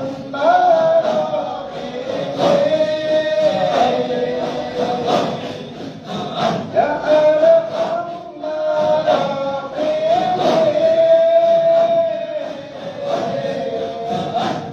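A group of men chanting together in a melodic religious chant, holding long notes that slide between pitches, with sharp percussive beats throughout.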